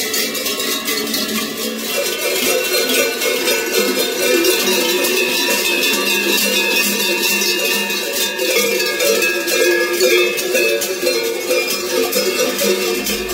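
Many large cowbells hung from the belts of Kurent costumes ringing together in a dense, continuous jangle as the wearers walk and bob along; it is the noise the Kurent makes to drive off winter and evil.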